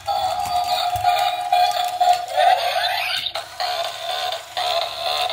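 Electric toy lizard's built-in sound chip playing a tinny electronic melody through its small speaker, with a rising warble of sound effects about halfway through.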